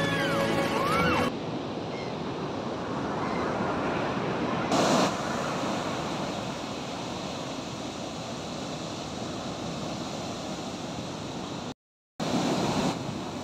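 Ocean surf breaking on a sandy beach, with wind buffeting the microphone in gusts. It opens with the end of a louder pitched sound with held and gliding tones, which cuts off abruptly about a second in.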